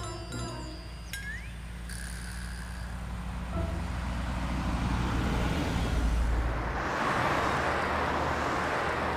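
A car's engine rumbles low and steady as it drives by, swelling over a few seconds, then gives way to the wash of city traffic noise about seven seconds in.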